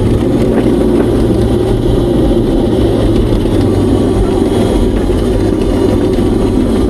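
A car engine running steadily, a continuous low drone without changes in pitch.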